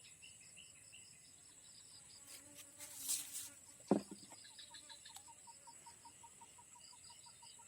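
Insects chirping steadily, with a constant high-pitched whine and repeated pulsed chirps; a fast even run of chirps joins in about halfway through. A short rustle comes about three seconds in, followed by one sharp knock.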